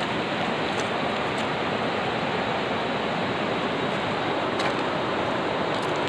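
Steady rush of river water, an even hiss with no pauses, with a few faint light clicks over it.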